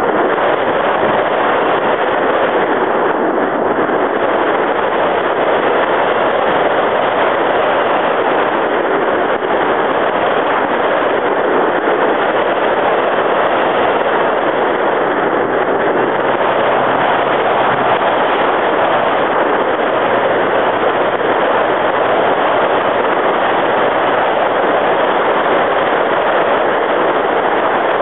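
RC plane in flight heard from its onboard camera's microphone: a loud, steady rush of wind and motor noise with no pauses.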